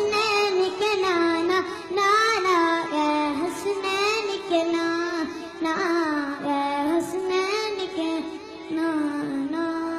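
A young boy singing a devotional song solo into a microphone, holding long notes with wavering ornaments in the melody.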